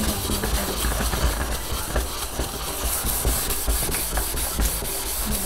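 Waterproof sandpaper on a hand sander rubbing back and forth over a wooden cutting board coated in linseed oil: oil wet-sanding. The rub is steady, with quick, even strokes.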